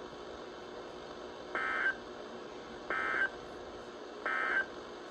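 Emergency Alert System end-of-message signal on a NOAA Weather Radio broadcast: three short bursts of warbling SAME digital data tones, about a second apart, over faint radio hiss. It marks the end of the tornado warning message.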